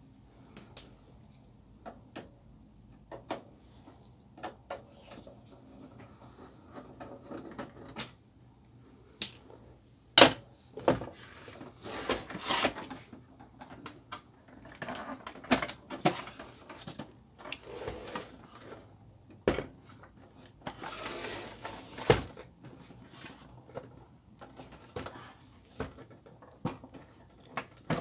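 A laser printer's plastic casing being taken apart by hand: scattered clicks and knocks of plastic panels and a screwdriver, with rustling as the housing is turned and moved. The loudest is a sharp knock about ten seconds in.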